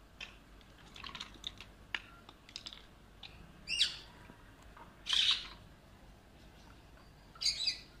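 Alexandrine parakeets giving three loud, short squawks in the second half, after a run of small clicks and taps as they climb and peck about the wire cage and its toys.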